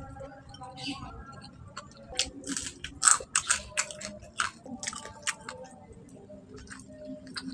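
Close-up chewing and biting of fried fish and rice eaten by hand, with a quick run of crisp crunches in the middle.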